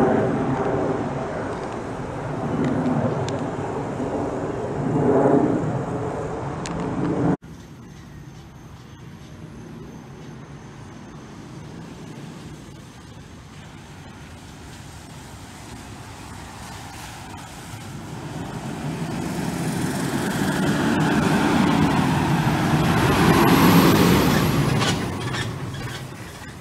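Fire engine's diesel engine running as it drives up and past, growing louder over several seconds and fading near the end. Before that, a louder truck engine cuts off abruptly about seven seconds in.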